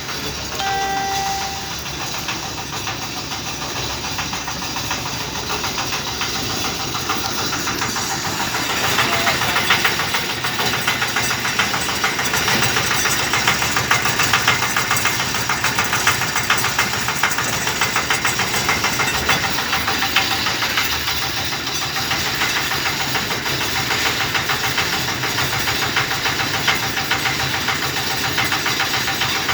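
Septic siphoning truck's engine and vacuum pump running steadily, with a rushing hiss of suction that grows louder and brighter about nine seconds in. A short pitched tone sounds about a second in.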